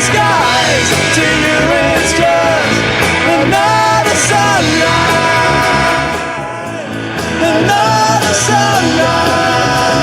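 Rock band playing live with a lead singer, vocals over the full band. The music dips briefly in loudness a little past the middle.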